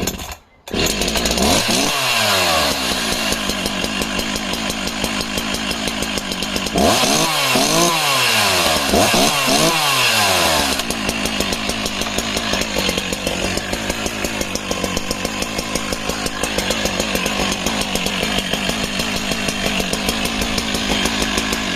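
Husqvarna 365 Special two-stroke chainsaw firing up about a second in, blipped up and down in a few quick revs, then running steadily at high speed. A strong-compression saw that the owner calls aggressive.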